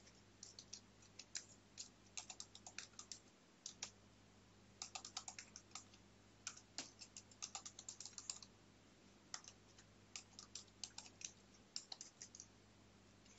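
Faint computer keyboard typing: quick runs of keystrokes with short pauses between them.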